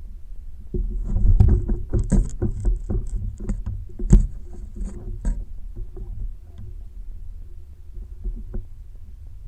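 Knocks and splashing around a plastic fishing kayak: a quick run of sharp knocks and splashes starts about a second in and eases off after about five seconds, over a low rumble.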